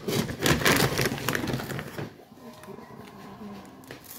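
Dry cat kibble rattling while being scooped from the crinkly plastic food bag with a cup, a dense clatter for about two seconds. It then goes quieter as the kibble is poured onto the pile in a metal pan.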